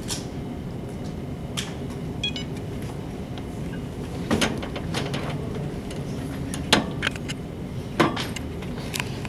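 Several sharp clicks and knocks at irregular intervals over a steady low rumble.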